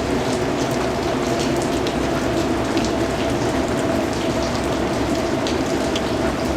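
Steady rain falling, with individual drops pattering and ticking on a surface over a constant hiss.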